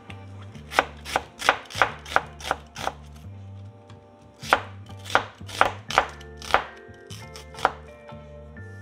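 Chef's knife slicing an onion on a bamboo cutting board: sharp taps of the blade striking the board in two quick runs of about seven strokes each, with a pause of about a second and a half between them and one last stroke near the end.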